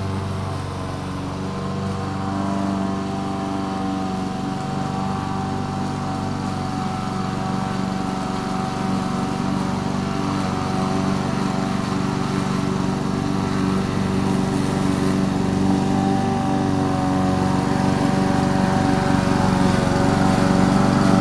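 Lawn mower engine running steadily while cutting grass, gradually growing louder as the mower comes closer.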